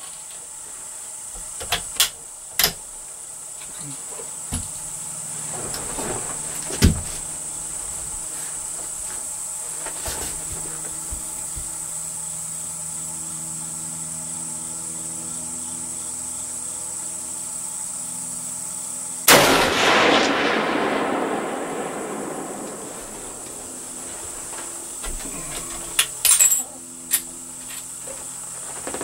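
A 7mm Remington Magnum rifle fires a single shot about two-thirds of the way in. The sharp report rolls away over about three seconds.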